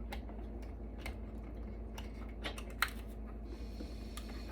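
Scattered light clicks and taps of small metal server parts being handled as a bracket is worked off, with one sharper click just before three seconds in. A steady low electrical hum runs underneath.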